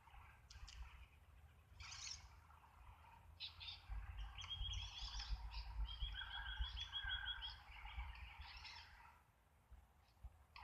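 Birds calling, with scattered chirps and two fast trills of repeated high notes in the middle, over a faint low rumble.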